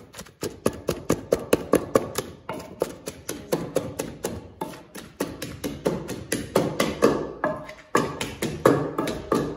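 Rapid, steady knocking of a wooden pestle pounding food in a mortar, about four to five strokes a second.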